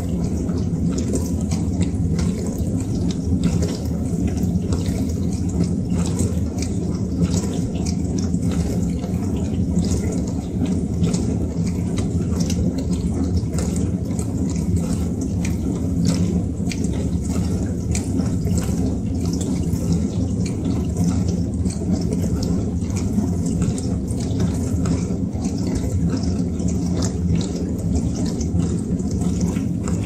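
Dishwasher running: a steady low hum from its wash pump under continuous water spraying and splashing inside the tub.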